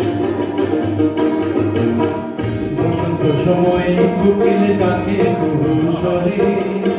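Background music laid over the video: a song with melody and percussion.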